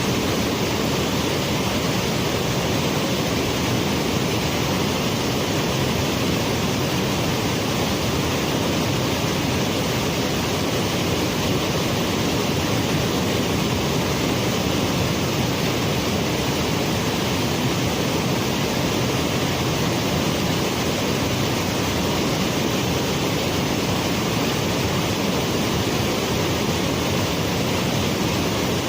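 Waterfall rushing, a loud, steady wash of falling water with no breaks.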